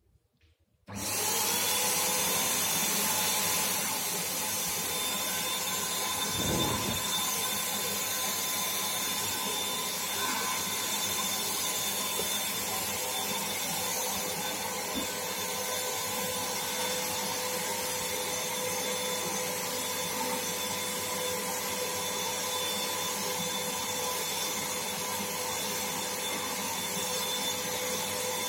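Black+Decker HVLP400 electric paint spray gun switched on about a second in, its motor and fan running at a steady whine with a hiss of air while spraying paint.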